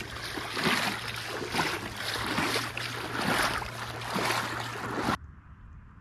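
Rhythmic splashing through shallow water, about one surge a second, that cuts off abruptly about five seconds in.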